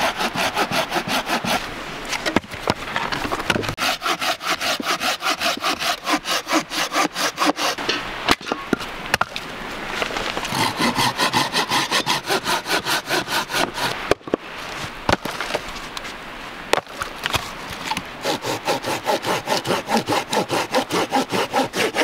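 Hand saw cutting firewood in quick, steady back-and-forth strokes, about three a second, stopping briefly a few times.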